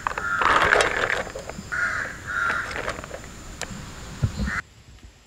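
Birds calling outdoors: a series of loud, harsh calls, about half a second each, with a few sharp clicks in between. The calls stop abruptly about four and a half seconds in.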